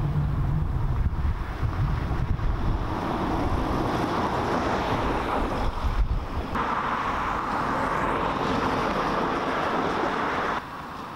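Street traffic: a van and then a car driving past, with wind rumbling on the microphone. The sound drops abruptly near the end.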